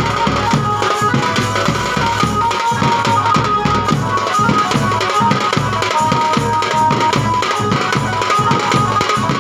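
Live band baja music: a fast, steady drumbeat on the band's drums, with a melody of long, held high notes over it.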